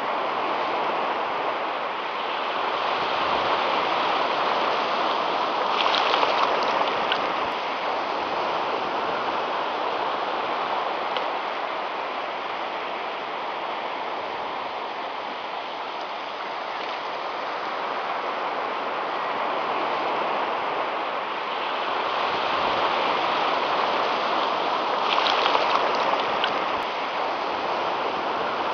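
Surf washing on a beach: a steady rushing noise that swells and eases every several seconds.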